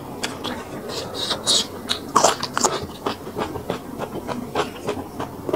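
Close-miked eating: a person chewing bún rice vermicelli, with many irregular wet clicks and smacks of the mouth.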